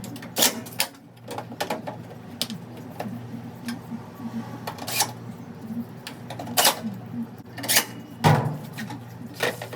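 Samsung front-load washer running its first test after a drain pump replacement: a steady low hum with scattered sharp clicks and knocks, the loudest about eight seconds in.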